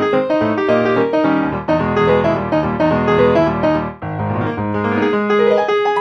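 Background music: a piano playing chords and a melody.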